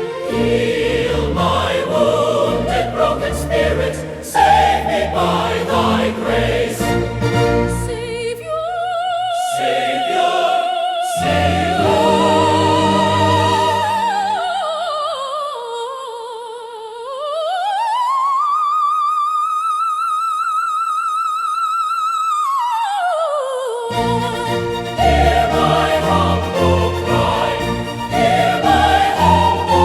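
Choral hymn music: a choir with full accompaniment. Near the middle the bass drops away and a lone high melody line with vibrato glides down, then rises to a long high held note, before the full choir and accompaniment come back in.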